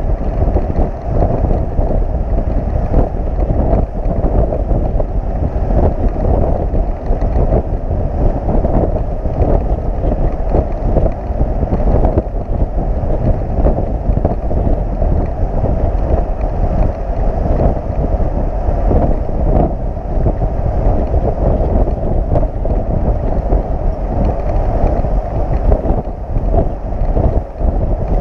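Wind buffeting the microphone of a motorcycle carried on a flatbed tow truck at highway speed: a loud, unsteady low rumble.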